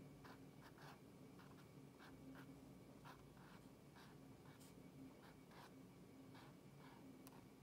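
Faint scratching of a brush pen's tip on a stiff shikishi card as katakana are written: short irregular strokes, two or three a second.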